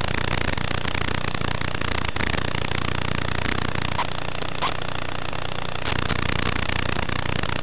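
FPV racing quadcopter's motors and propellers running in flight, under a heavy, steady hiss; the low motor hum drops away for about two seconds in the middle, then returns.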